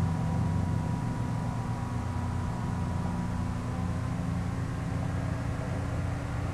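Steady low background hum with a faint tone slowly rising in pitch; no speech.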